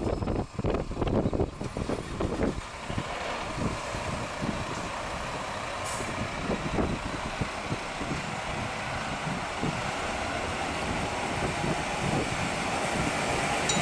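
PKP EN57 electric multiple unit approaching along the track, its running noise rising steadily as it draws near. Wind buffets the microphone for the first few seconds, and short high-pitched tones sound near the end.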